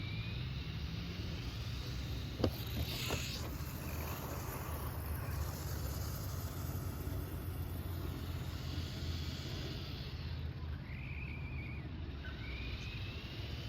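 Small electric RC monster trucks running, their motors whining up in pitch as they accelerate, with tyre and chassis noise. Two sharp knocks come about two and a half and three seconds in, over a steady low rumble.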